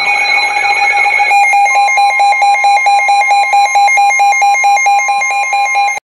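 Weather-alert radio's alarm sounding loudly: a steady electronic tone that about a second and a half in turns into fast, even pulsing beeps, the radio's signal that a weather alert has been received.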